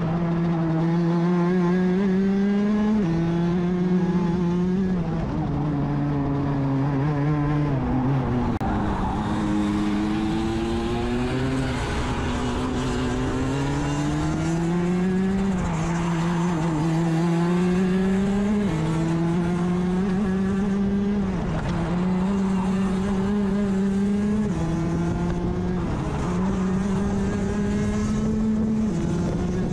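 Rotax DD2 kart's 125cc two-stroke single-cylinder engine at racing speed, heard onboard: the note climbs steadily under acceleration and drops abruptly several times as the driver comes off the throttle, then climbs again.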